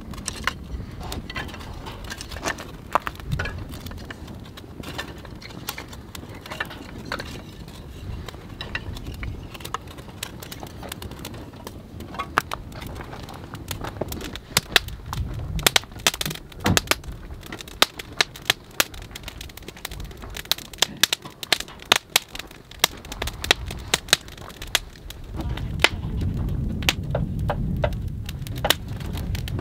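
Wood campfire of split kindling crackling as it catches, with sharp pops that come sparsely at first and much more often from about halfway on. A low rumble comes in near the end.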